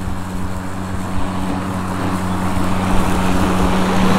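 Ryobi 40-volt brushless cordless self-propelled lawn mower running while cutting grass: a steady electric motor hum under the rush of the spinning blade, growing louder as the mower comes closer.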